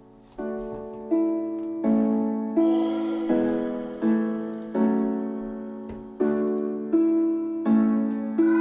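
Piano chords from an electronic music track, one struck about every three-quarters of a second and each ringing down, played through a small RGB PC soundbar speaker.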